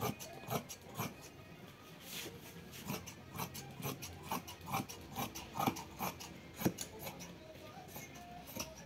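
Irregular short scrapes and clicks of fabric and tailoring tools being worked on a table, with a few sharper clicks among them.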